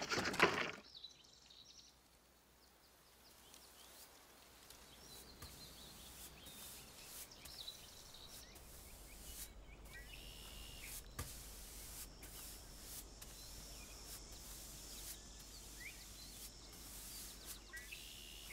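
A loud rasping stroke on wood in the first second, then quiet countryside ambience with scattered birds chirping and a few brief high calls.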